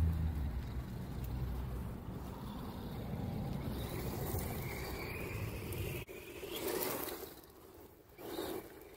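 Brushless electric motor and tyres of a 1/10-scale DEERC 200E RC truck running across grass and gravel, a steady noisy rush with a faint rising whine as it pulls away. After a sudden cut about six seconds in come three short, louder rushes.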